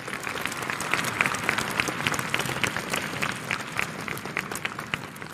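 Audience of schoolchildren applauding: a dense patter of many hands clapping that swells up at the start and dies away near the end.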